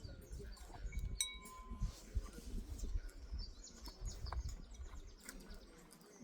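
A spoon clinking against a soup bowl: one clear ringing clink about a second in, with lighter taps and clicks of tableware around it.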